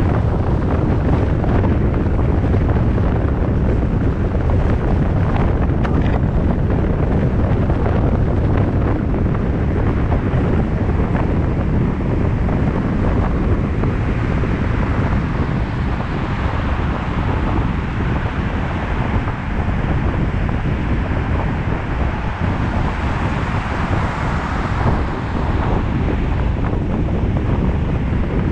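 Wind buffeting the microphone over the steady road and tyre noise of a car driving at speed. A brighter hiss swells in the second half and eases near the end.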